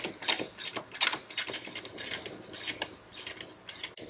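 Hand ratchet wrench clicking in a quick, steady run of strokes, several clicks a second, as it cranks the threaded rod of a coil spring compressor by hand, tightening it down on a front coil spring.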